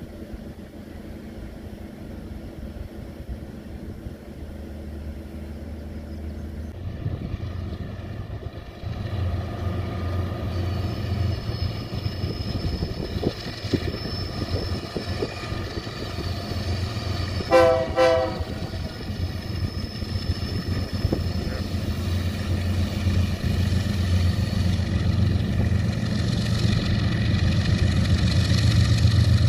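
BNSF diesel locomotives hauling a loaded coal train approach on a curve, their engines rumbling steadily and growing louder. A short horn toot sounds a little past halfway.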